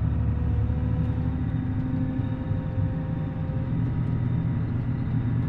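A Caterpillar wheel loader's diesel engine running steadily, heard from inside the cab.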